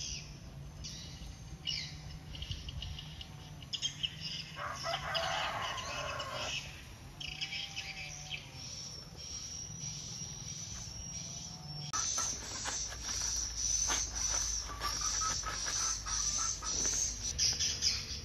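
Birds chirping, with roosters crowing now and then. About twelve seconds in, the background changes abruptly to a steady high buzz under the chirps.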